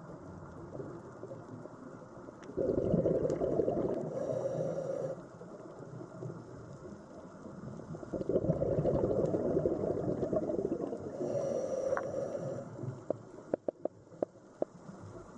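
Scuba diver's exhaled bubbles rushing out of the regulator, twice, each a few seconds of low, bubbling noise, with a quieter stretch between them. A run of sharp clicks follows near the end.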